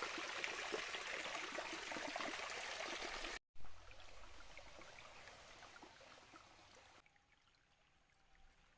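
Small stream trickling and splashing over stones. About a third of the way in the sound cuts out for a moment, then returns fainter and softer, fading further toward the end.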